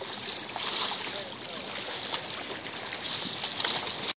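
Sea water lapping and splashing in small waves, a steady rushing hiss with a few small splashes, and faint distant voices under it.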